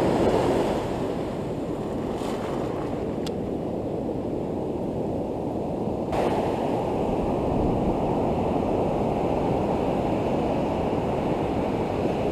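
Ocean surf: broken waves washing in over the sand in a steady rushing hiss, with wind on the microphone. The wash gets a little louder about six seconds in.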